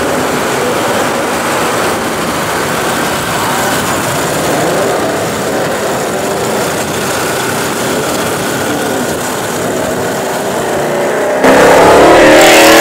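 Ford Mustang GT's 5.0-litre V8 with a Borla ATAK exhaust running at low speed in traffic, a steady engine note. Near the end the sound jumps suddenly much louder.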